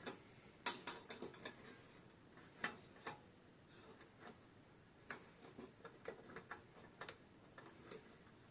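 Faint, irregular small metallic clicks and taps of a tool against the clock's movement parts while a small lever is worked loose, several in quick succession about a second in, then scattered singly.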